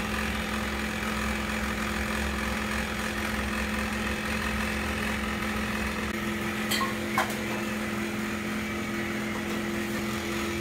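A steady mechanical hum, like an electric motor, with a second, higher tone joining about six seconds in, and two short clinks about seven seconds in.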